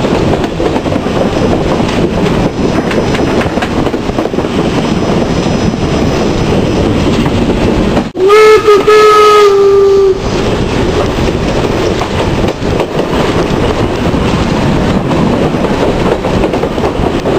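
Steam locomotive V-820 running along the track, with steady rail clatter and wind noise. About halfway through, its steam whistle sounds one blast of about two seconds, wavering slightly in pitch at the start.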